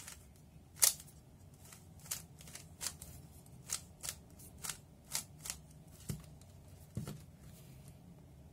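3x3 Rubik's cube being turned by hand through an algorithm: a run of sharp plastic clicks and clacks as the layers are turned, irregularly spaced, a few to a second.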